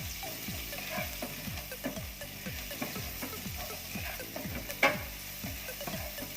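Chopped small onions and garlic frying in hot oil, sizzling steadily as they are stirred. There is a sharp clack of the utensil against the pan about five seconds in.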